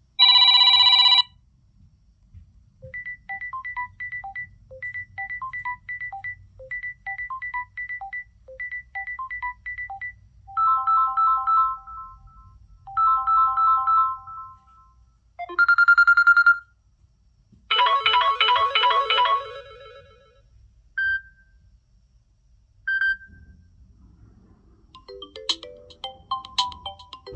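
Samsung Galaxy A12 ringtones and alert tones played one after another: a loud tone lasting about a second at the start, a quick repeating pattern of short notes, a few short melodic phrases, two single blips, and a new marimba-like melody beginning near the end, with brief pauses between them.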